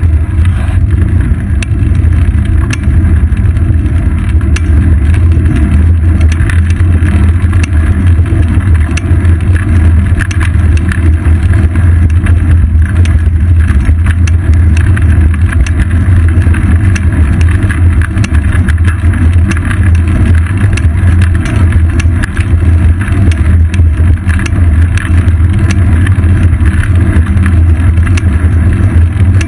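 Loud, steady low rumble of wind buffeting and road vibration picked up by a GoPro Hero 2 in its housing on a bicycle's seat post while riding along a paved street, with frequent small knocks and rattles from bumps in the road.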